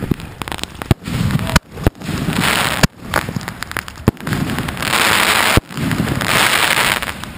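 Consumer aerial firework shells going off: a few sharp bangs in the first two seconds, then three long crackling, hissing bursts as the shells break into glittering stars overhead.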